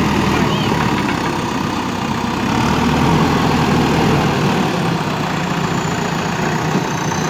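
JCB backhoe loader's diesel engine running steadily at a low idle.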